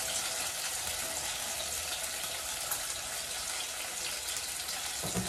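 Sliced onions and tomatoes frying in olive oil in a pan, giving a steady sizzle.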